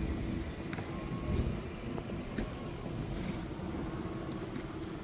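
Steady low rumble with a faint hum, and a few light clicks and knocks scattered through it.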